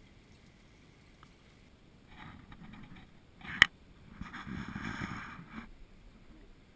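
Handling noises at a plastic gold pan with water and black sand in it: two short stretches of scraping and swishing, with one sharp click in between, about three and a half seconds in.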